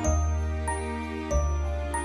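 Background music: an instrumental Christmas track, with a new note struck every half second or so over held bass notes.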